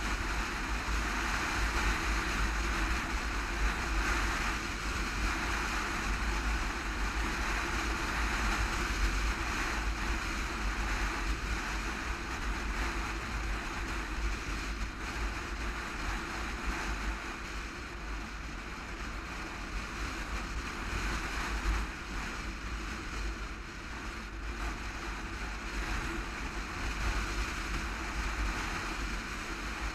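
Wind rushing over the camera microphone on a moving sport motorcycle, with the bike's engine running steadily underneath.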